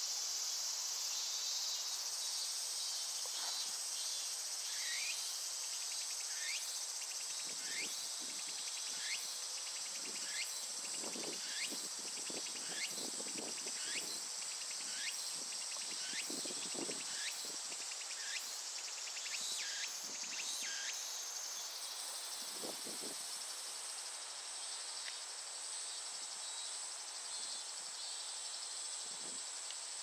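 Cicadas singing in the trees: a steady, high-pitched buzzing drone, joined for the first two-thirds by a pulsing call of short rising notes repeated a little faster than once a second, which then stops.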